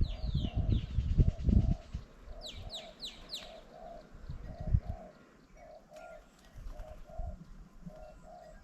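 A dove cooing over and over in short paired notes, with another bird giving quick, high, falling whistled calls. Low thumps and rumbles are loudest in the first two seconds and come again briefly near the middle.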